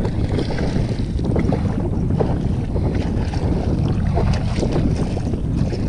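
Steady wind noise buffeting the microphone, with water splashing as a hooked peacock bass thrashes at the surface beside the kayak.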